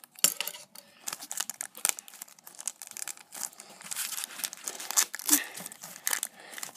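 Wrapper of a 1990–91 Pro Set hockey card pack crinkling and tearing as it is ripped open by hand, a run of irregular crackles and short rips that thickens about four seconds in.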